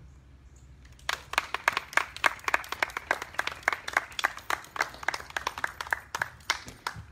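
Audience applauding: a round of hand clapping that starts about a second in and dies away near the end.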